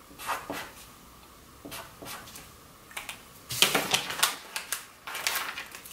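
Felt-tip marker squeaking and scratching on paper in short strokes as a number is written, then louder rustling and crinkling of the paper label being picked up and handled after about three and a half seconds.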